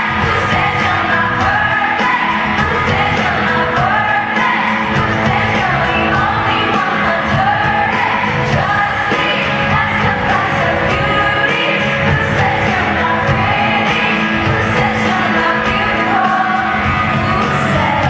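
Live pop song with female lead vocals sung into microphones over a band with drums, bass guitar and electric guitar, played loud through an arena sound system.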